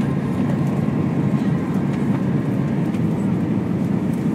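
Steady cabin noise inside an Airbus A320 on final descent: engine and airflow noise heard from a passenger seat, an even low rush with a faint steady whine above it.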